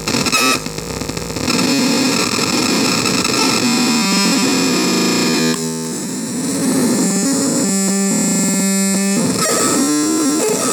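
Screaming Baby CMOS harsh noise synth putting out loud, dense distorted noise laced with shrill steady tones that shift and glide. About eight seconds in it breaks into a rapid stuttering pulse, and near the end a tone wobbles up and down.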